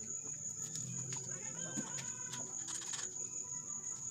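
Crickets trilling as one steady high note, with scattered clicks and light knocks from hand work on the grass chopper's sheet-steel hopper housing, a quick cluster of them about three seconds in.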